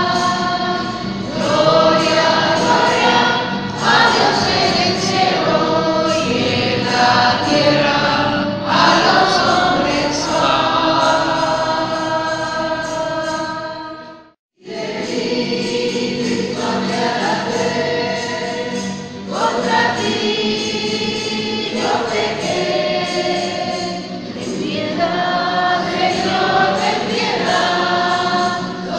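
Choir singing a hymn. The singing cuts off abruptly about halfway through and starts again a moment later.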